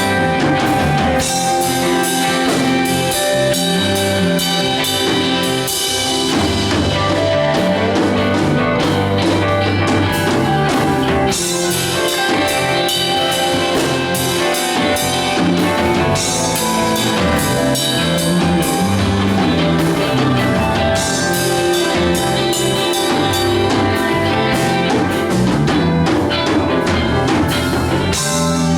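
A live band playing together: drum kit and guitar over a moving bass line, in a rock-style studio jam.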